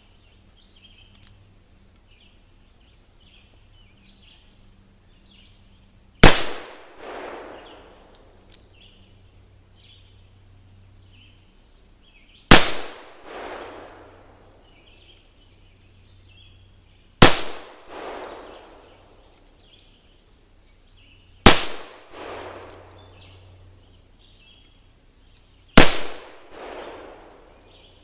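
Five black-powder shots from a .31 Remington Pocket cap-and-ball revolver, spaced four to six seconds apart, each followed about a second later by a softer second report. Birds chirp faintly between the shots.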